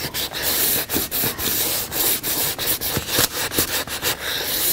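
320-grit sandpaper wrapped around a sanding block, rubbed by hand along the edges of a gelatin-fresco panel on Medex board in quick back-and-forth strokes, giving a rhythmic scratchy hiss as the coating is sanded off the edges.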